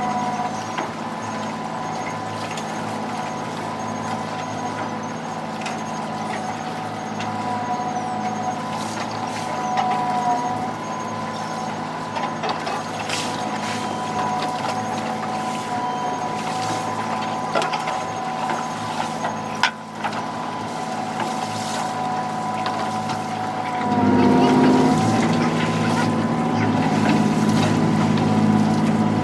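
Fishing boat's engine running steadily under a steady high-pitched whine, with occasional faint knocks. About 24 seconds in the engine grows louder and stays up.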